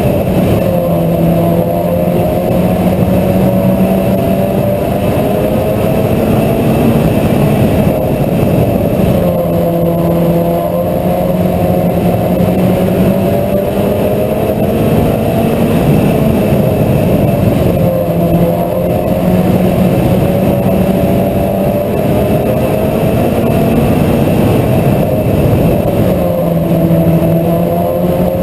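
Mini stock race car engine running hard at racing speed, its pitch climbing and dropping in a repeating cycle about every eight and a half seconds as the car accelerates and lifts through each lap of a short oval.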